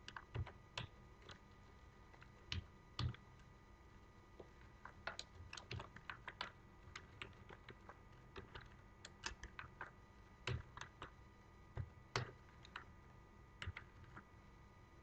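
Faint computer keyboard typing: keystrokes come singly and in quick runs, with short pauses between them.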